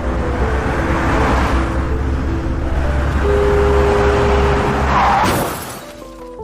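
A car speeding by with skidding: a loud rushing noise over a deep engine rumble, a held screech-like tone about three seconds in and a sharp swoosh near the end before it fades.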